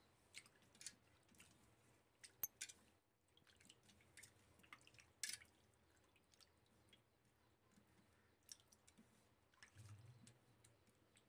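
Faint wet sounds of hands washing raw fish pieces in water in a stainless steel plate: scattered drips, squishes and small clicks, a few sharper ones about two and a half and five seconds in.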